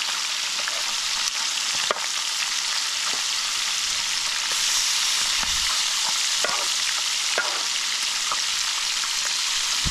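Fish frying in hot oil in a pan: a steady sizzle with scattered small crackles and pops.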